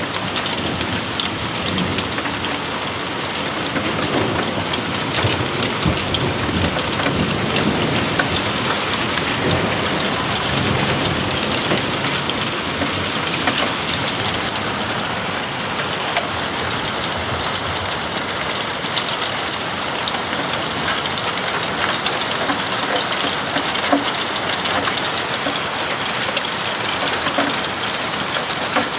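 Steady rain falling in a thunderstorm, with a low rumble of thunder rolling through from about four seconds in to about twelve seconds in.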